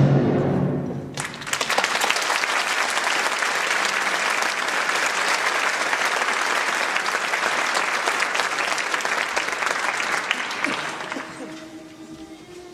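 Orchestral music ending on a final chord, then audience applause breaking out about a second in, steady, fading away near the end.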